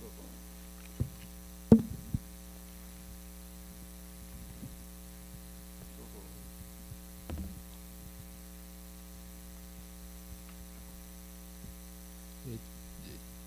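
Steady electrical mains hum in the audio feed, the sign of faulty recording equipment, with a few brief knocks, the loudest a little under two seconds in.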